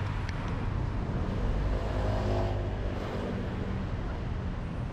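Road traffic rumbling steadily, with a motor vehicle passing close by, its engine swelling up and fading away around the middle.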